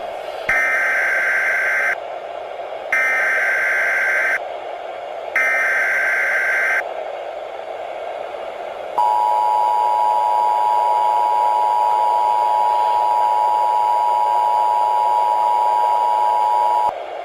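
Emergency Alert System tones announcing a tornado warning. First come three bursts of SAME digital header data, each about a second and a half long. Then the two-tone EAS attention signal sounds as a steady dual tone for about eight seconds. A constant hiss runs underneath.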